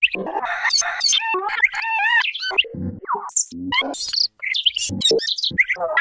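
Remixed, glitched hybrid bird call made from spliced birds and other animals: quick chirps, rising and falling whistles and squawks, cut together with a few lower, deeper calls. There is a brief break a little over four seconds in.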